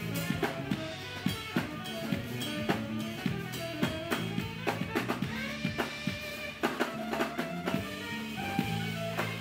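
Live band playing: tenor saxophone lead holding and moving between notes over electric bass and a drum kit keeping a steady beat.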